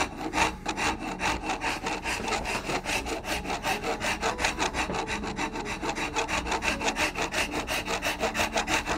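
Small Nicholson half-round bastard file rasping over a wooden shotgun stock in quick, even strokes, about five a second, feathering in the edges of the comb.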